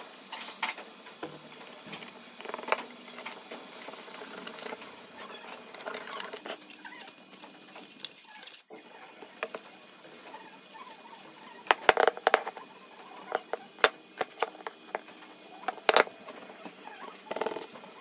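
Paintbrush strokes brushing a clear finish onto a carved pine board, a soft scratchy patter. In the second half the board and brush are handled on the table with several sharp clicks and knocks.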